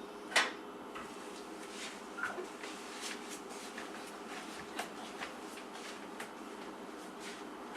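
Faint scattered clicks and light knocks of small objects being handled, about one a second, over a low steady hum; the sharpest click comes about half a second in.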